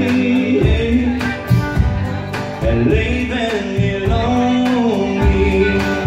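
Live country band playing a slow song in the instrumental gap between sung lines: acoustic guitar, electric guitar, upright bass and drums.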